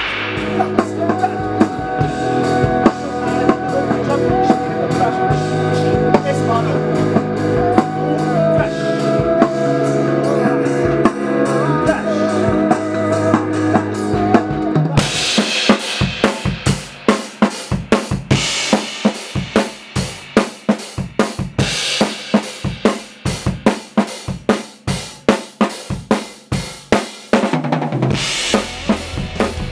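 Rock drum kit playing a groove of kick, snare and cymbals. For the first half it plays with the rest of the song, with bass and a melody line under it. About halfway the other instruments drop out and the drums are heard alone, and a fuller sound comes back near the end.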